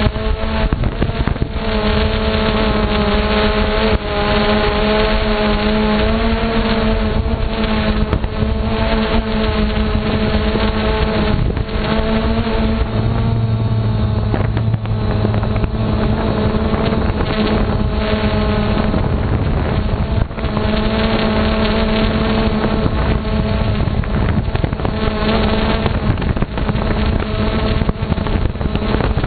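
Electric motors and propellers of a camera-carrying drone, a steady whir whose pitch wavers slightly as it flies, with wind noise on the microphone.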